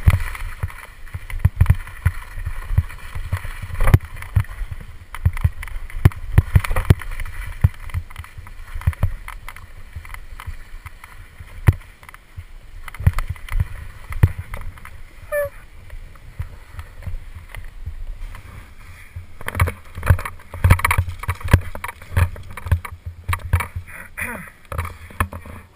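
Skis scraping and chattering over hard-packed snow on a steep descent, a run of irregular scrapes and knocks, quieter for a few seconds in the middle and busier again from about two-thirds of the way in.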